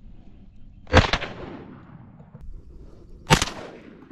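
Two shotgun shots about two and a half seconds apart, each a sharp crack with a short fading echo, fired at a drake duck sitting on the water by the decoy.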